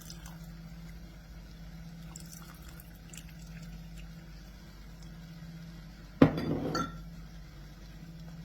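Tamarind water poured from a glass into a pan of curry: a sharp glassy clink and a short splash of just over half a second, about six seconds in. A steady low hum and a few faint clicks run underneath.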